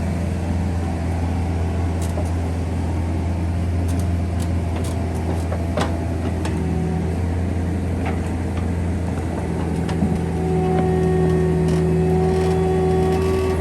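Bobcat 341D excavator's diesel engine running steadily, with scattered sharp clicks and knocks. About ten seconds in it gets a little louder and a steady whine joins it.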